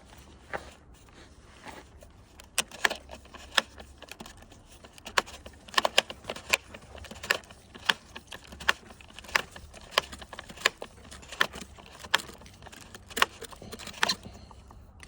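Husqvarna string trimmer head being wound by hand: the bottom knob is twisted to reel trimmer line onto the spool, its ratchet giving sharp plastic clicks about every two-thirds of a second, sometimes in pairs.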